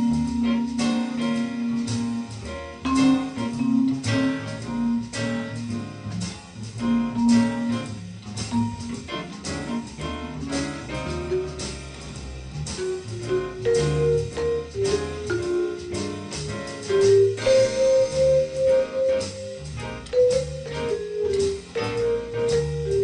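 Trixon vibraphone played with yarn mallets: a bluesy jazz line of quick, ringing struck notes that climbs higher about halfway through, with a lower accompaniment sounding underneath.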